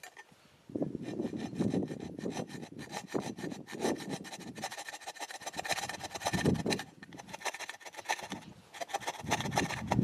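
Rapid, rasping back-and-forth scraping strokes of abrasive hand work on a part, starting just under a second in, easing off about seven seconds in, then picking up again.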